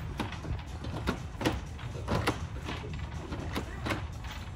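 Irregular knocking and clattering, two or three knocks a second, over a low rumble: a corrugated plastic pipe feeder knocking on its mount as an Asian elephant pushes and swings it with its trunk.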